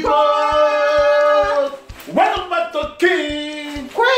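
Voices singing an opening song with long drawn-out notes over a steady low beat.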